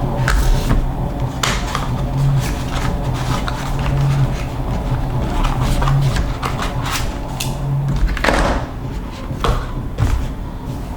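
Plastic packaging being handled and opened: irregular clicks and rustles over a steady low hum.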